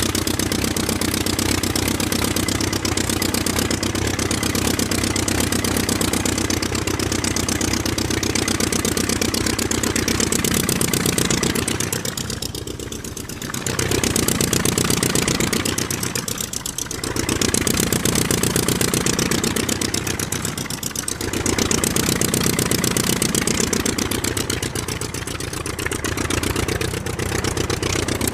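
Aircraft engine running steadily with a dense, even pulse, its level dipping briefly four times in the second half.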